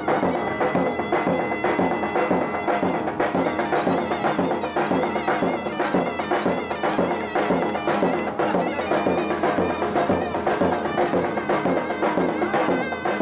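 Traditional folk music: a reedy wind-instrument melody over a steady drum beat.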